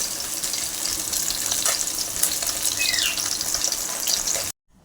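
Pieces of fish frying in hot oil in a pan, a steady sizzle with crackles and pops, being fried crisp and red for a fish curry. It cuts off suddenly near the end.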